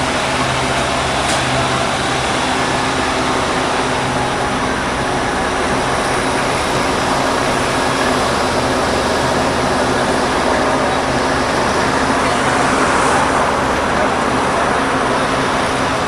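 Niagara Falls' water crashing down in a loud, steady rush, an even noise without breaks or changes.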